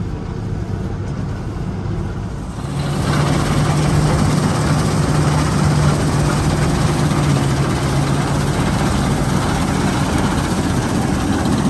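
Fiatagri 3350 combine harvester running as it harvests triticale: a steady engine drone, muffled at first from inside the cab, then about three seconds in louder and fuller from outside the machine, with a strong low hum and a rushing hiss over it.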